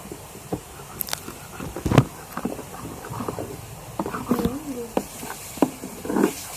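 A spoon stirring a wet slime mixture in a small container: irregular clicks and scrapes, with a louder knock about two seconds in.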